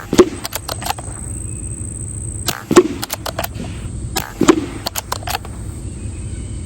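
Air rifle firing pellets: three sharp shots, the second about two and a half seconds after the first and the third under two seconds later, with lighter clicks and taps between them.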